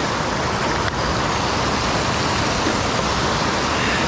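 Steady rush of a mountain stream's water running over rocks.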